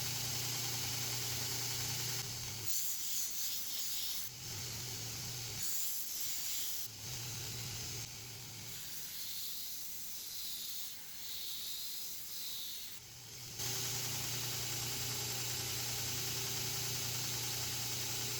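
Belt grinder running with a steady motor hum; from about two seconds in until about three-quarters through, high-carbon steel of the tomahawk head is pressed against the belt in several stretches, giving a rough grinding hiss as the bevels and edge are ground.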